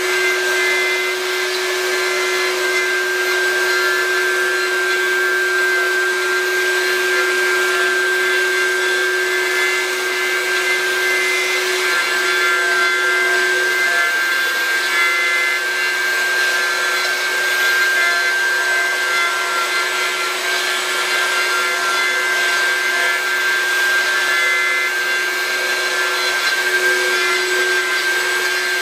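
CNC router spindle running with a steady whine while its end mill carves into a wooden board, with a continuous hiss of the cutter cutting the wood.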